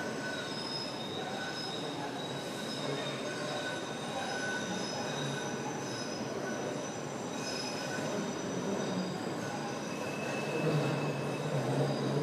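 MBTA Red Line subway train running into the station, its steel wheels squealing on the rails in high, thin tones that come and go over a steady rumble. The rumble grows a little louder near the end.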